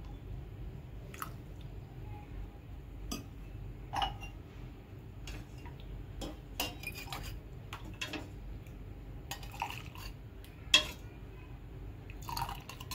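A steel ladle scooping milk from a metal pan and pouring it into a steel tumbler: repeated light clinks of metal on metal, with the trickle and drip of the pouring milk. A sharper clink about eleven seconds in is the loudest.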